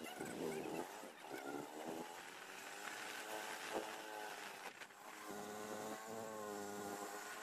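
A small vehicle engine running, its pitch wavering, then steadier and fuller for the last two seconds or so.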